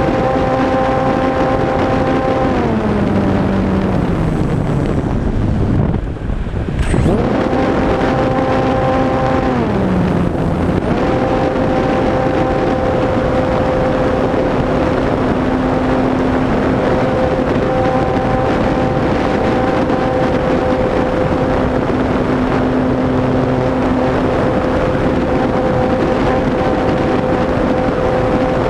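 HobbyZone Radian's electric motor and propeller whining over a steady rush of wind on the onboard microphone. The whine slides down in pitch as the motor is throttled back, about two seconds in and again about ten seconds in, with a brief drop in loudness around six seconds in. From about eleven seconds it holds a steady pitch.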